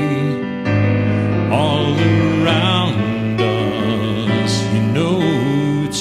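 A man singing with vibrato while accompanying himself on a digital piano, the voice rising and falling over sustained piano chords.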